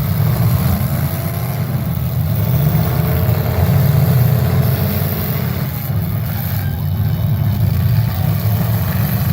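Demolition derby cars' engines running and revving.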